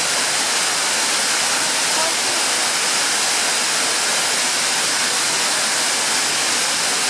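Mumlava waterfall: a steady, unbroken rush of falling water.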